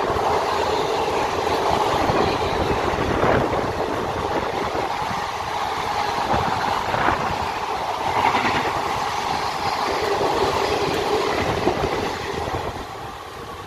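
A rake of Indian Railways ICF passenger coaches running past at speed, a loud steady rush of wheels on rail with scattered knocks. The sound drops off sharply near the end as the last coach goes by.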